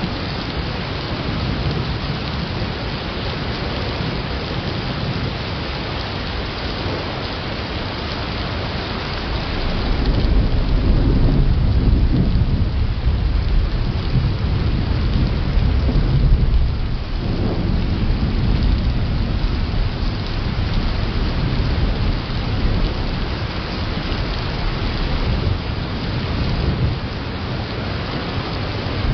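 Thunderstorm: steady rain throughout, with a long low rumble of thunder that swells about a third of the way in and goes on for well over ten seconds.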